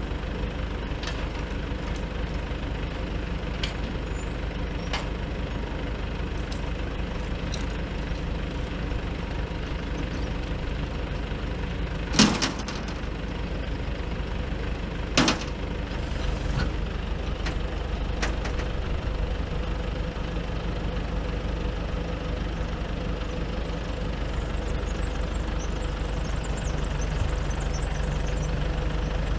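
Nissan Cabstar truck's diesel engine idling steadily while it runs the Multitel MT222AZ boom lift's hydraulics, with scattered light ticks and two loud knocks about three seconds apart midway through. The engine note grows a little stronger near the end.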